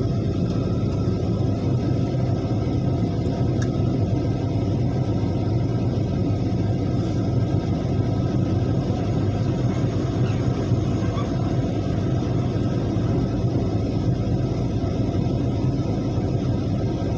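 Diesel engine of heavy earthmoving machinery running steadily, a continuous low rumble.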